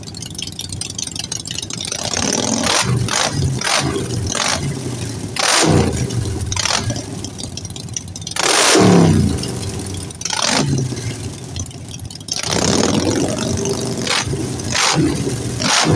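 Two Harley-Davidson Sportster air-cooled V-twins, one 1200 cc and one 883 cc, idling side by side through Vance & Hines aftermarket exhausts: Short Shots on one, Big Radius on the other. The throttles are blipped repeatedly, each rev rising and falling quickly, and the loudest rev comes about halfway through.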